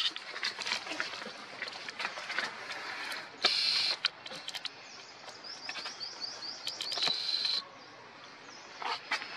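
High-pitched animal chirping: a short buzzy burst, then a quick run of repeated chirps that runs into a held high note and cuts off abruptly, with scattered light clicks throughout.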